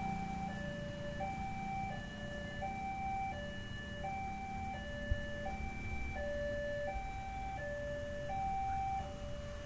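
Railway level crossing's electronic warning alarm sounding a repeating two-tone ding-dong, switching pitch about every two-thirds of a second, as the barriers come down to warn of an approaching train. Motorbike engines idle underneath.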